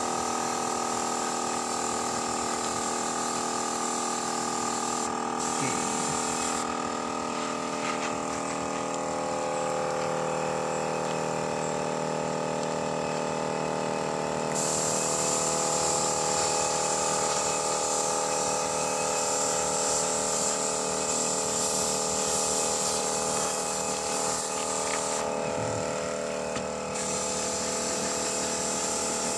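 Air compressor running steadily with a steady hum, under the hiss of a gravity-feed spray gun spraying paint. The high hiss stops twice, for several seconds about a quarter of the way in and again briefly near the end.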